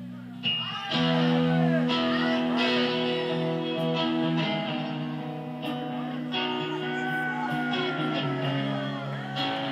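Electric guitar played through an amp, a chord struck about half a second in and again at about a second, then left ringing with sustained notes that glide slowly in pitch in the second half.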